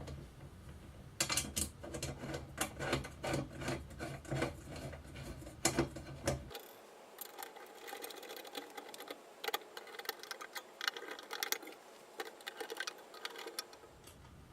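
Irregular clicking and tapping of hand tools and small metal mounting hardware being worked. A low hum under the clicks cuts out abruptly about six and a half seconds in and returns near the end.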